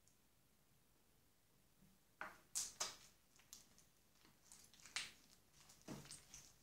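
Sticky white-glue slime being stretched and squeezed by hand, giving a scatter of sharp clicks and crackles that begin about two seconds in.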